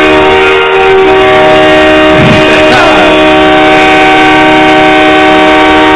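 Hockey arena goal horn sounding one long, steady chord of several notes, blown in celebration of the championship-winning goal.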